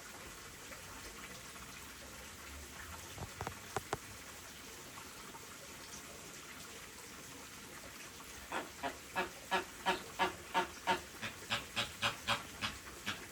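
Chilean flamingo honking: a rapid run of about fifteen goose-like calls, about three a second, starting a little past halfway, over steadily trickling water. A few short clicks come earlier, near four seconds in.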